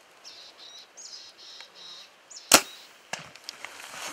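A compound bow shot: one loud sharp crack of the bow releasing about two and a half seconds in, then a fainter knock about half a second later as the arrow strikes the bull elk at 44 yards. Small birds chirp faintly before the shot.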